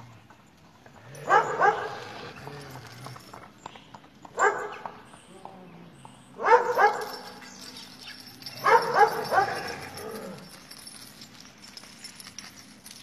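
Dogs barking in four bouts a few seconds apart, each of one to several short barks.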